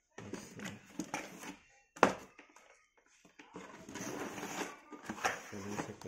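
Cardboard box and plastic-windowed packaging of a toy RC car being handled, rustling and scraping, with one sharp knock about two seconds in.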